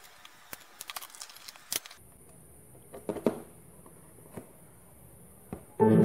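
Light clicks and taps of plastic parts and wires being handled as a small clear plastic speaker box is closed and turned over, with a knock about three seconds in. A strummed guitar chord comes in just before the end.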